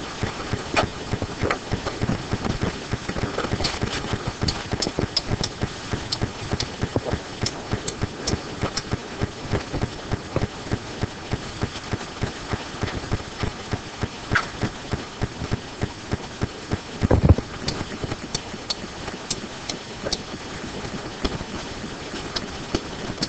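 Rapid, irregular clicking and tapping, several small clicks a second, with one louder thump about seventeen seconds in.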